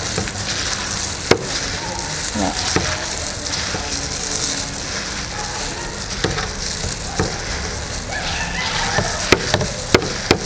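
Gloved hands squishing and tossing fresh rice noodles (num banh chok) with prahok sauce in a dish: a steady wet crackle, with a few sharp clicks, a couple of them near the end.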